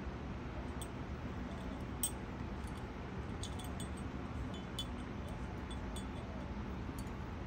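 Scattered light metallic tinkles and clicks over a steady low hum, with one sharper click about two seconds in.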